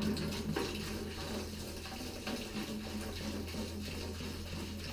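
Liquid splashing and trickling steadily, starting suddenly, with a few small knocks, over a steady low hum.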